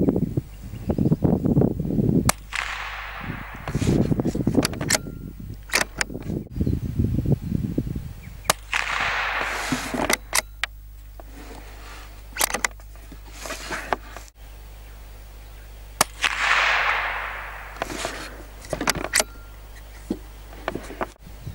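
Lithgow LA101 bolt-action .22 LR rifle firing, heard from the target end as sharp cracks a few seconds apart. Gusty wind rushes and buffets the microphone between shots.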